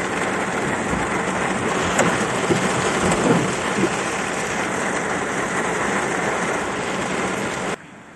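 Hail and heavy rain pelting a car's roof and windshield, heard from inside the car as a dense, steady rush of impacts with a few louder hits about two to four seconds in. It stops suddenly near the end.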